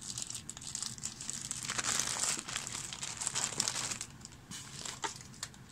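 Clear plastic bags of miniatures crinkling as a hand rummages through them in a cardboard box. The crinkling is loudest about two seconds in and dies down after about four seconds, with a couple of small clicks near the end.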